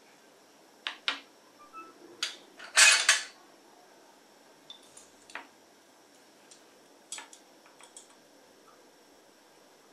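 Glass laboratory apparatus clinking and tapping as a test tube with a glass delivery tube and a receiving test tube are handled and knocked together. Scattered single clicks, with the loudest quick run of clinks about three seconds in.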